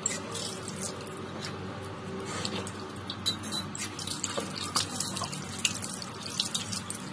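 Water running from a tap into a sink, with irregular splashes as hands scoop water to rinse the face.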